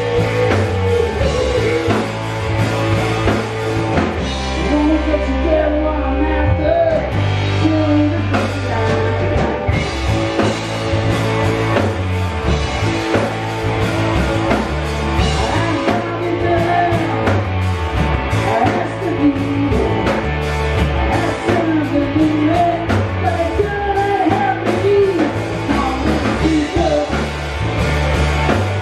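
Live rock band playing: electric guitars and a drum kit, with a man singing lead vocals.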